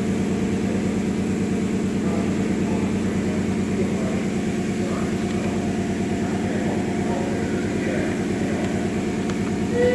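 2007 Nissan Maxima's 3.5-litre V6 running steadily with a fast, even pulsing hum. The owner takes the noise for a timing chain problem.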